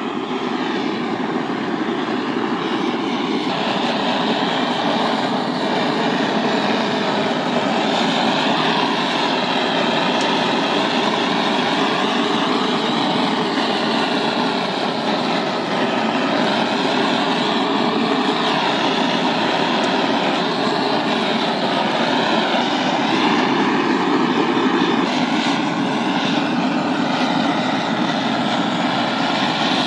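Handheld gas blowtorch flame running steadily as it sears mullet roe on a wire rack: a loud, continuous hiss whose tone slowly wavers.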